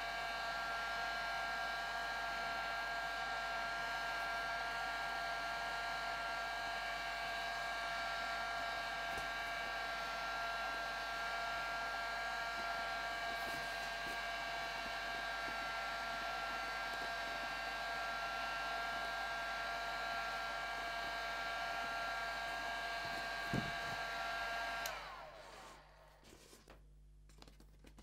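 Electric heat gun blowing hot air onto craft foam, a steady rush of air with a whine from its fan. It is switched off about 25 s in, and its pitch slides down as it winds to a stop. There is a small knock shortly before it stops.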